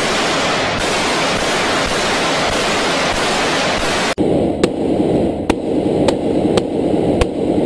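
Rapid automatic rifle fire at close range in a large hall, the shots run together into one continuous crackling din. About four seconds in it cuts to the sound heard from inside the armoured SUV being shot at: the gunfire is muffled, with sharp cracks about twice a second as rounds strike the bulletproof windshield.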